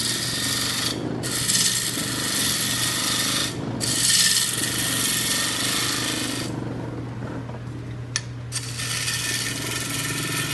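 A turning tool cutting a spinning wooden bowl on a small wood lathe, in four passes of two to three seconds each with short breaks between them, over the steady hum of the lathe. There is a longer pause about two-thirds of the way through, with a single click in it.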